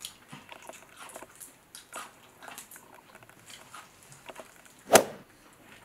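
Close-miked eating sounds: shrimp shell crackling as it is peeled by hand, with soft wet chewing and mouth noises. About five seconds in comes one sharp, loud snap.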